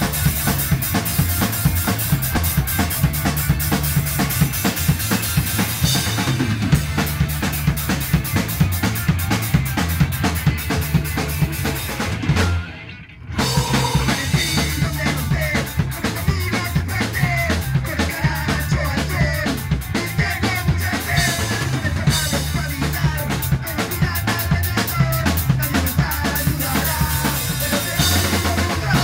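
Rock band playing electric guitars and a drum kit, with a driving beat. About halfway through the band cuts out for a moment; after that, singing in Spanish comes in over the band.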